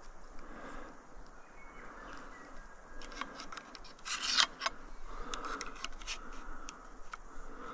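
Close rustling and sharp clicks of movement and gear handling near the microphone, with a short louder rustle about four seconds in and scattered clicks after it, over a steady outdoor hiss.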